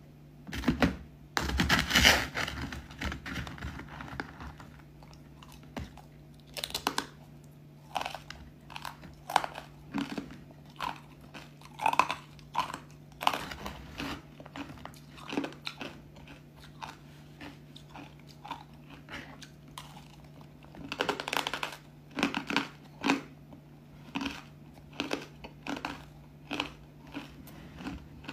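Pieces of matcha-powdered ice crunched and chewed between the teeth, a run of short, irregular crunches with louder bursts of biting near the start and again about two-thirds of the way through. A faint steady low hum lies underneath.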